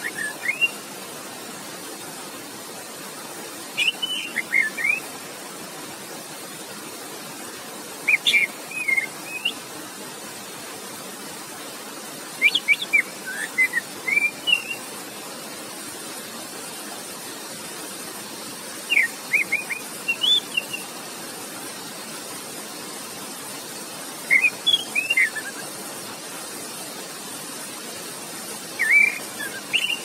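Orange-headed thrush singing short phrases of quick, clear whistled notes that rise and fall, seven phrases spaced about every four to six seconds, over a steady rush of flowing water.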